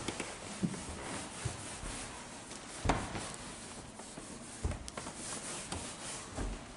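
Handling noise from a handheld camera being carried and panned: irregular rubbing and scraping with a few soft thumps, the strongest about three seconds in.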